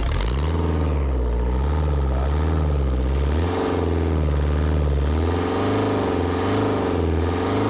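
Diesel van engine running on pure brake fluid just after starting, its speed rising and falling unevenly.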